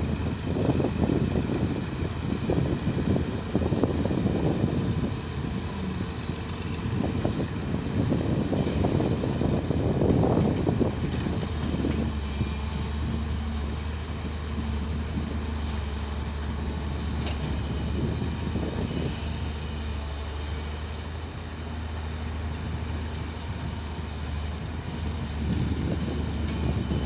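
Excavator's diesel engine running steadily, with louder rough surges of noise through the first dozen seconds and again near the end.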